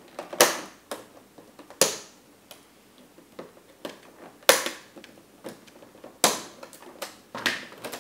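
Scissors snipping through plastic zip ties: five loud, sharp snaps a second or two apart, with smaller plastic clicks and rustles of the packaging between.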